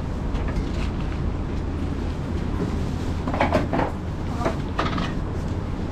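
Shop ambience: a steady low rumble, with brief indistinct voices in the background about three and a half and four and a half seconds in.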